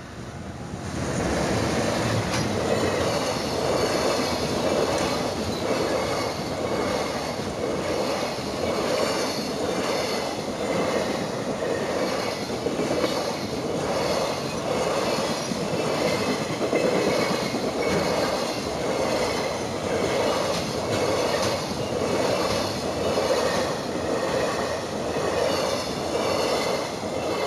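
Freight train, hauled by an EF210 'Momotaro' electric locomotive, passing close by: a steady roar of wagons with an even, rhythmic clatter of wheels over the rails. It builds up about a second in and fades right at the end.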